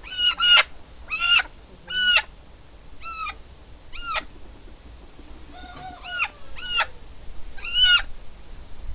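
Red country hen squawking in distress while held in the hand, about a dozen loud, sharp calls in short runs.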